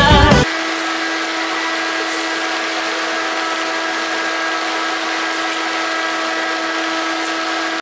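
High-powered blower fan running at a steady speed: a loud, even rush of air with a steady motor hum under it.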